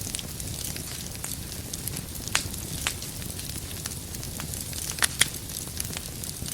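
Wood fire burning in a fireplace: a steady low rumble and hiss with sharp, irregular crackles and pops of burning firewood, two louder pops close together about five seconds in.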